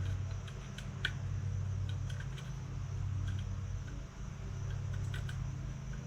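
A low, steady engine drone with an even pulse, with scattered light clicks over it, loudest about a second in and again near five seconds.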